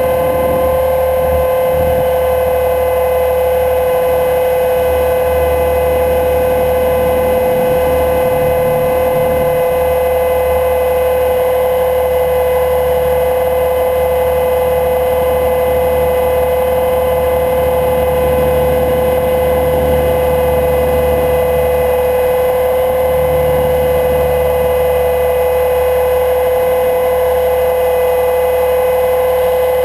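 HK 500 GT electric RC helicopter in flight: its Scorpion 1600KV brushless motor and rotor head give a steady pitched whine that holds one speed, heard close from the GoPro mounted on the airframe, with wind rumbling on the microphone in gusts.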